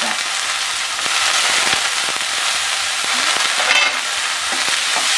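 Grated carrot, beetroot, onion and green peas frying in hot oil in a steel kadai: a steady sizzle with a few faint ticks.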